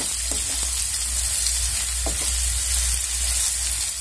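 Diced potatoes and soya chunks frying in hot mustard oil in a non-stick kadai: a steady sizzle, with a spatula scraping and turning them a few times.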